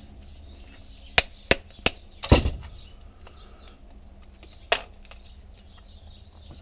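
A handful of sharp snaps and clicks from multi-grip pliers working a small copper coil just pulled from a CRT TV circuit board, the loudest crack about two seconds in and a last one near the end.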